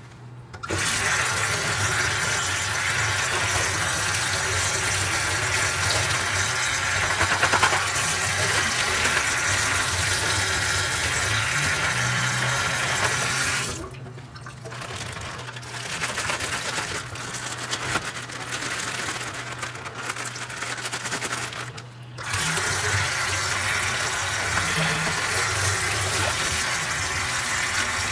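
Water running steadily from a tap, turned down or off about fourteen seconds in and back on full about eight seconds later.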